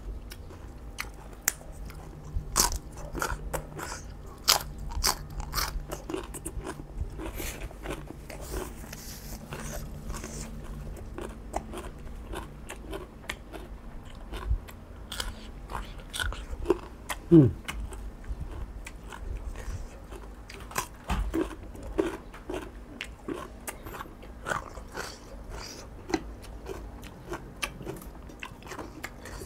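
Close-up chewing and crunching of raw leafy vegetables and shrimp salad, with many small sharp mouth clicks. There is a short falling vocal sound about halfway through.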